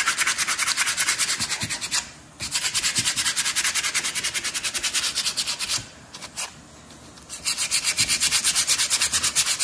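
Sandpaper rubbed by hand over the friction face of a new brake pad in quick back-and-forth strokes, about five a second, pausing briefly twice: sanding off fingerprints so they don't contaminate the pad.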